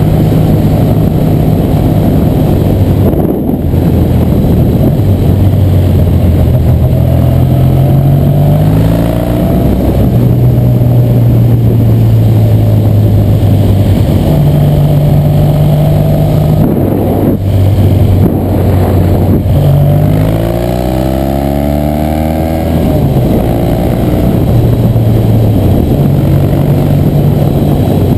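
1966 Triumph TR6R Trophy's 650cc vertical-twin engine running under way, mostly at a steady pitch. The pitch climbs as it accelerates twice, about a third of the way in and again about two thirds in.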